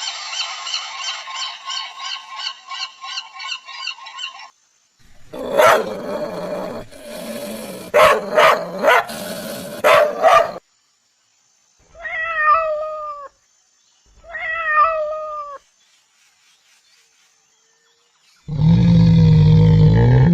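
A run of different animal calls, one after another: a fast chattering call at about four notes a second, then several seconds of loud harsh barking calls, then two drawn-out falling cat meows, and near the end a loud low roar begins.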